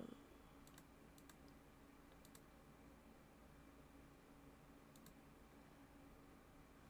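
A few faint computer clicks, some in close pairs, over near-silent room tone with a faint steady hum.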